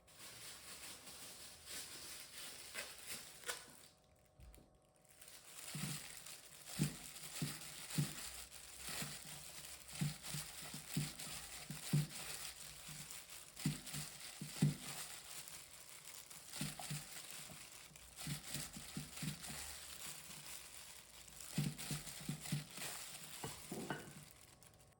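Kitchen food-handling sounds: crinkling and rustling over a steady hiss, with many irregular soft knocks and clicks.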